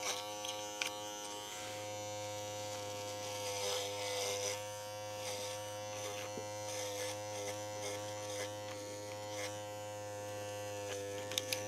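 Small cordless pet paw trimmer running with a steady, even-pitched buzz while it clips the long hair around a dog's paw.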